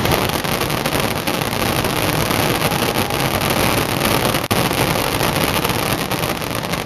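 Fireworks finale barrage: a dense, continuous roar of shell bursts and crackling stars, the reports too close together to separate.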